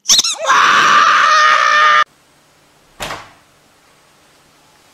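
A squeaky dog toy squeezed in one long, loud, harsh squeal of about two seconds that cuts off suddenly. About a second later comes one sharp knock from a door.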